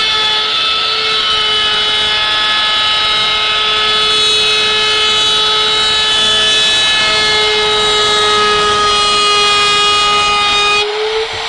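Handheld router fitted with a flush trim bit running at full speed, a steady high whine with the rush of the bit trimming hardwood face-frame overhang flush with the case edge. The sound cuts off shortly before the end.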